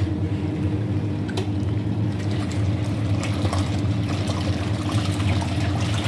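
Hisense top-loading washing machine running a wash cycle: a steady motor hum with water sloshing as the tub agitates clothes in soapy water.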